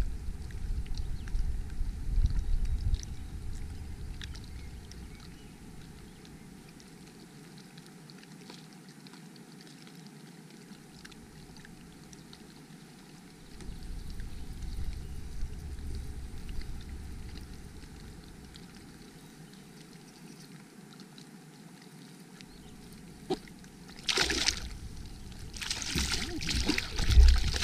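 Water sloshing and lapping around a kayak, with a few loud splashes near the end.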